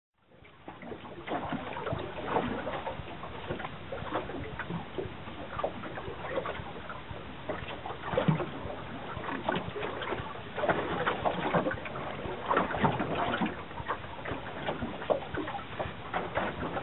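Water slapping and sloshing against a small boat's hull in short, irregular splashes.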